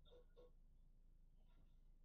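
Near silence: faint room tone with a steady low hum, and a few faint short blips in the first half second.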